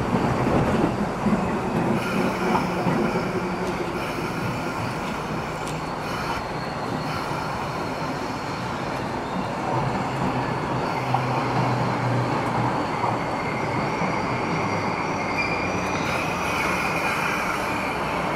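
MTR East Rail line electric train heard from inside the car, running with a steady rumble and wheel noise as it slows toward its stop. A high wheel squeal rises near the end.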